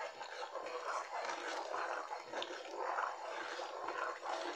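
A spoon stirring a pot of beans in palm oil, with wet sloshing and squelching in repeated strokes about twice a second.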